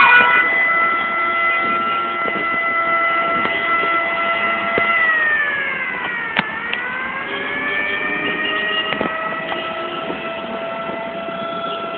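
Fire engine siren holding a long steady tone that slides down in pitch about five seconds in and climbs back up again, with a sharp click at its lowest point.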